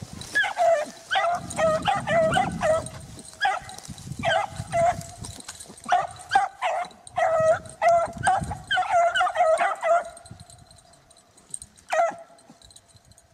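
Hunting beagles baying in a quick string of short, high yelping cries, the voice of hounds running a rabbit's track. The cries stop about ten seconds in, with one more cry a couple of seconds later.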